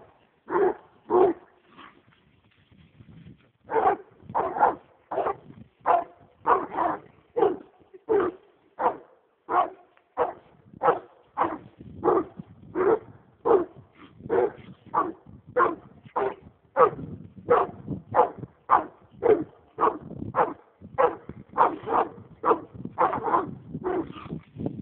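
American Leopard Hound barking over and over at a caged raccoon, about two barks a second, with a short break about two seconds in.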